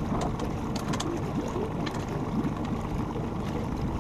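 Wind rumbling on the microphone over water lapping at a small boat's hull, with a few faint clicks about a second in.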